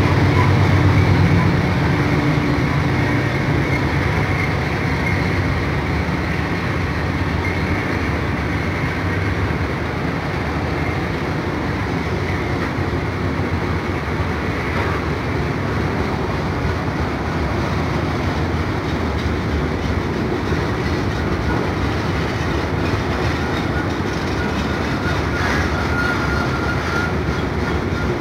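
Autorack freight cars rolling past on the rails, a steady rumble and clatter of wheels, a little louder in the first couple of seconds.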